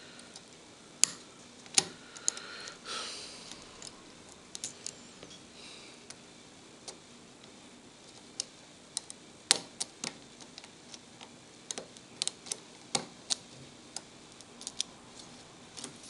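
Lock pick and tension wrench working the pin tumblers of a padlock: scattered, irregular sharp metallic clicks and ticks as the pins are lifted and set, a few of them louder than the rest.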